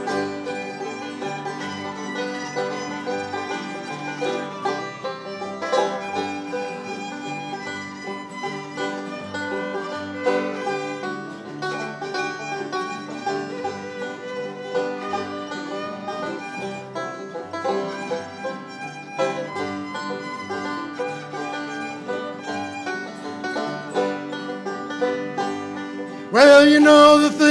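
Acoustic country band, with banjo, fiddle and acoustic guitars, playing an instrumental break over a steady beat. A man's singing voice comes back in loudly about a second before the end.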